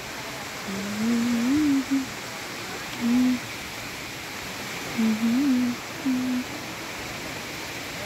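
A person humming a tune in short low phrases that waver in pitch, over a steady background hiss.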